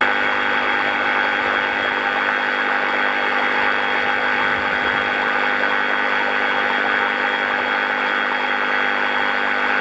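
FLEX FX2271 24-volt cordless reciprocating saw running steadily at constant speed with its blade end held in water, the motor's steady tones over the splash of churned water.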